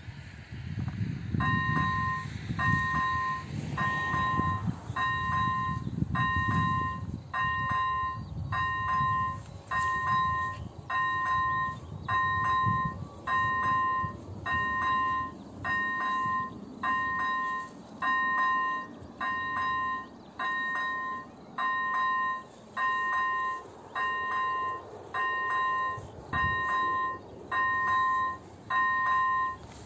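AŽD 97 level-crossing warning bell, an electronic bell, switching on about a second and a half in and sounding a two-tone electronic ring in even pulses about once a second. It signals that the crossing has activated for an approaching train.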